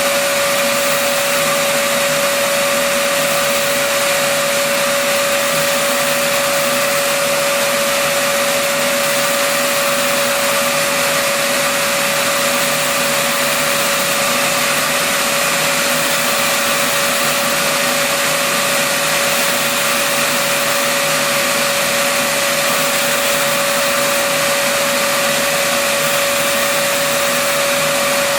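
Shapeoko CNC router's spindle running steadily while cutting an adaptive clearing toolpath: a constant whine over a steady hiss, with no change in pitch or level.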